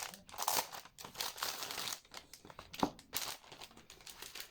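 Merch packaging being crinkled and handled as it is opened, in an irregular rustle with a sharp tick or two.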